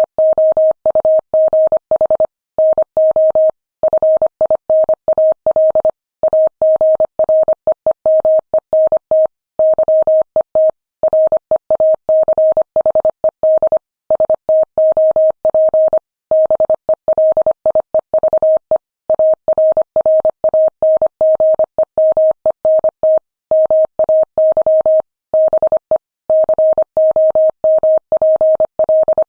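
Morse code sent at 25 words per minute: a single steady tone keyed on and off in rapid dots and dashes, with short pauses between words.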